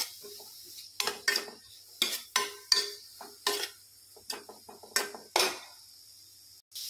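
A spatula scraping and knocking against a stainless steel pan as grated carrots are stirred in ghee, about a dozen irregular strokes with a slight metallic ring, over a faint sizzle.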